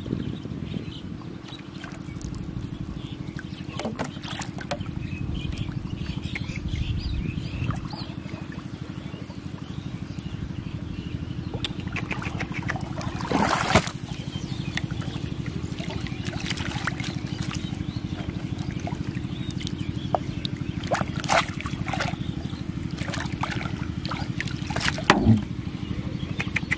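Water splashing around a floating plastic-bottle fish trap. There is a sharp splash about halfway through, and another near the end as a hand grabs the bottle. A steady low hum runs underneath.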